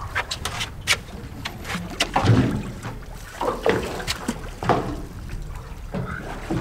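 Scattered clicks and knocks of fishing rods and gear being handled on a small boat, over water lapping at the hull.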